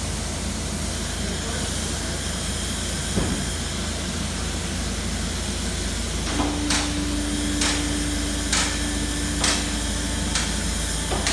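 Knocks from a car's suspension, checked for abnormal noise: a series of sharp knocks about once a second from about six seconds in, over a steady hiss, with a steady hum for a few seconds alongside the knocks.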